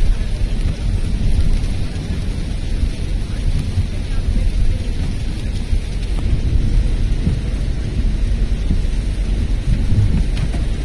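Heavy rain and wet-road noise heard from inside a moving car's cabin: a steady, deep rumble with a lighter hiss of rain above it.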